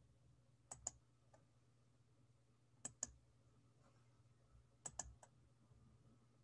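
Faint clicking of computer controls in three quick groups of two or three clicks, about two seconds apart, over a low steady hum.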